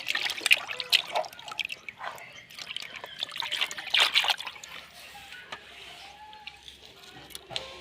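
Shallow water splashing, trickling and dripping in quick irregular splashes, busiest in the first four seconds and then dying down.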